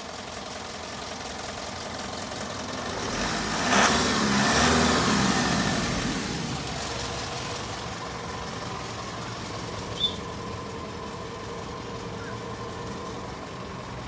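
Steady vehicle engine hum that swells to its loudest about four to five seconds in, then eases back to a steady level. A brief high chirp sounds about ten seconds in.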